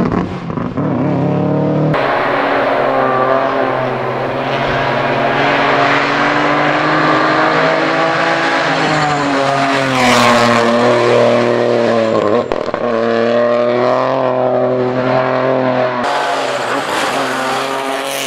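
Rally car engine running hard at high revs, its pitch climbing and dropping again as the driver shifts and lifts off. The sound changes abruptly about two seconds in and again near the end, as the footage cuts to another stretch of driving.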